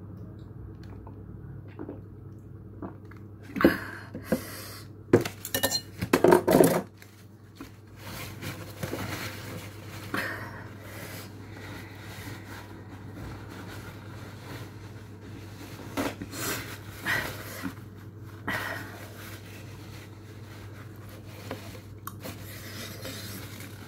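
Tableware clinking and clattering as dishes and cutlery are handled, with a quick run of sharp knocks a few seconds in and softer knocks later, over a low steady hum.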